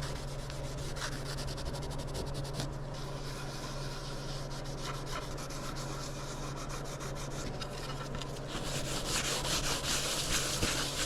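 Rapid back-and-forth rubbing by hand on a wooden piece, getting louder and busier about eight and a half seconds in, over a steady low hum.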